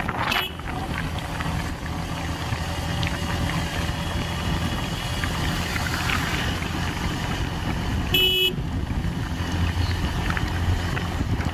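Motorcycle riding along a road: steady engine and wind rumble, with a short vehicle-horn toot about eight seconds in and a brief one right at the start.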